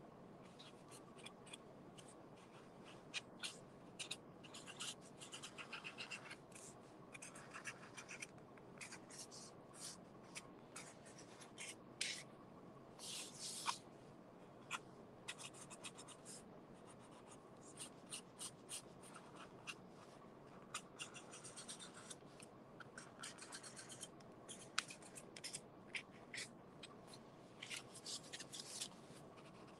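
Faint scratching of a black felt-tip marker on corrugated cardboard, in many short strokes as lines are gone over and thickened.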